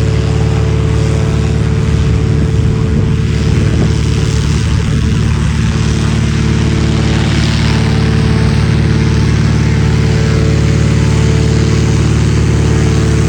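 Piston-engine propeller aircraft running loud and steady at close range, its engine drone holding one pitch.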